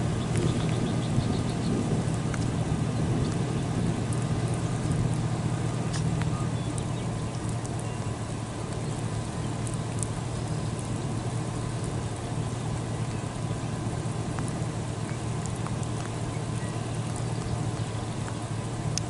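Steady low rumbling noise with a few faint ticks scattered through it.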